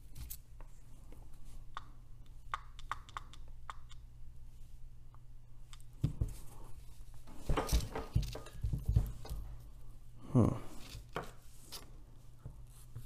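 Light clicks and knocks of a 1949 Emerson desk fan's metal motor parts being handled and worked at with a screwdriver, with louder knocks and rattles from about six seconds in. A steady low hum runs underneath.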